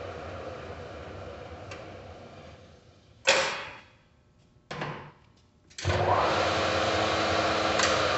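Mori Seiki MS-1250G engine lathe headstock running, then winding down to near quiet about three seconds in. Two short clunks come as the speed is changed, and just before six seconds in the spindle starts again and runs steadily, louder than before.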